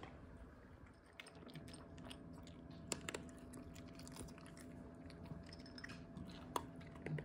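A Shih Tzu eating from a raised bowl: faint, rapid chewing and crunching clicks, with two sharper knocks about three seconds in and near the end.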